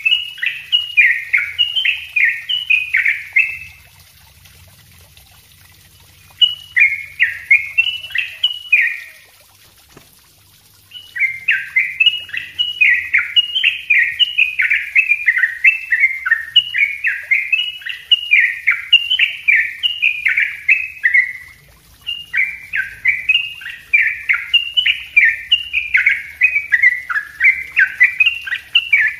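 Yellow-vented bulbul singing fast, tightly packed runs of notes. It sings in four bouts, the longest about ten seconds, with short pauses between them.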